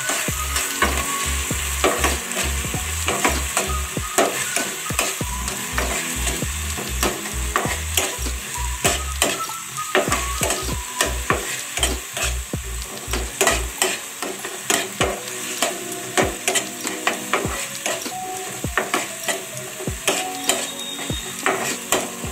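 A metal spatula stirring and scraping vegetables around a non-stick frying pan in quick repeated strokes, over a steady sizzle of frying.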